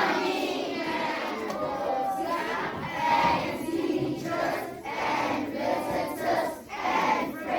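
A crowd of children's voices shouting together, breaking into a run of short, evenly paced calls in the second half.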